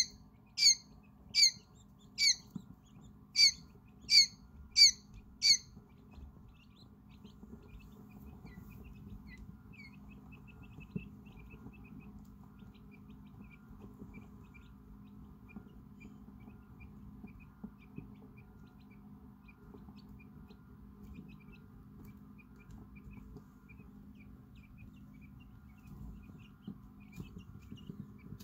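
Hours-old quail chicks: loud, sharp peeps repeated about every two-thirds of a second, each falling in pitch, stopping about six seconds in. Then soft, scattered cheeping from the brood over a low steady hum.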